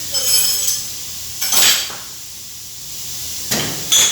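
Metal engine parts and hand tools clinking and knocking together as they are handled, in several separate bursts with a short metallic ring, the last and loudest near the end.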